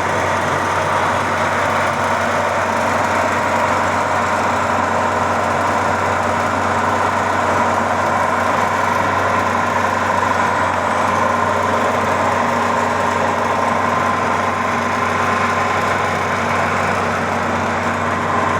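Maxxi Bimo 102 combine harvester's engine running steadily, with a constant high whine over the engine noise.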